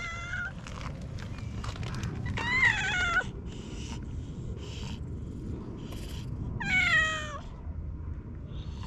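A cat meowing: the tail of one meow right at the start, then two clear meows about two and a half and seven seconds in, each falling in pitch.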